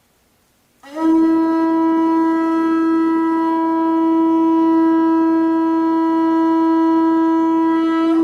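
Conch shell trumpet blown in one long, steady note that starts about a second in, scooping briefly up into pitch and then holding level.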